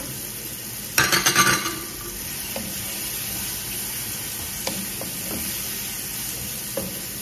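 Chicken pieces frying with garlic and onion in a small nonstick pan, sizzling steadily while a wooden spatula stirs them, with small scrapes and clicks. About a second in there is a brief loud clatter against the pan.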